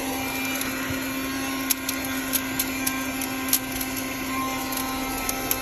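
1973 Dynamic handheld car vacuum running with a steady motor hum and whoosh, with several sharp clicks from about two seconds in as dirt and small debris hit its fan.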